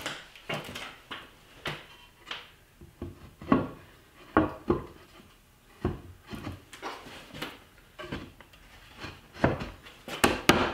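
Walnut boards knocking and clunking together as hand-cut dovetail joints are dry-fitted into a box by hand. The knocks are irregular, with a quicker run of sharper taps near the end.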